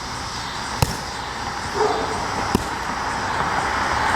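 Two sharp knocks, about two seconds apart, over a steady hiss of background noise.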